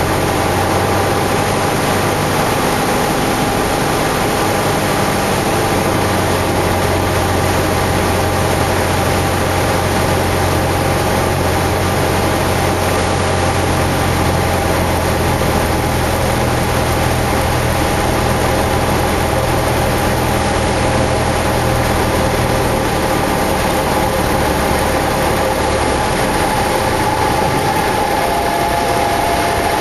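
Cessna 172's engine and propeller droning inside the cabin on final approach, with steady airflow noise. About three quarters of the way through, the low drone drops away as power comes back over the runway. A thin steady tone comes in near the end.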